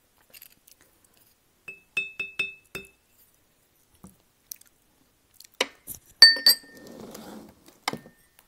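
Glassware clinking: a quick run of light ringing taps about two seconds in, then a sharp knock and louder ringing clinks around six seconds in, followed by a brief soft rustle and one more click.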